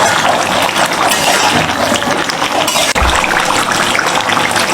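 Duck curry boiling in a kadai, its reducing gravy bubbling steadily, with a single low knock about three seconds in.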